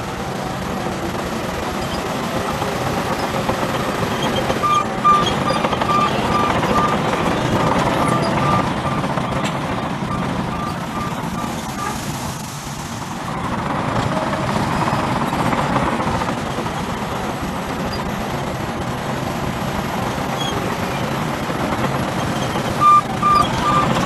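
Heavy diesel earthmoving machinery running steadily: a Shantui crawler bulldozer and a tipping dump truck. A reversing alarm beeps evenly, about two to three beeps a second, from about five seconds in to about halfway through, and starts again near the end.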